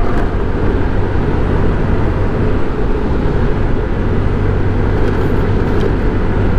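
Motorcycle cruising at about 50 km/h: a steady low engine hum under a constant rush of wind and road noise.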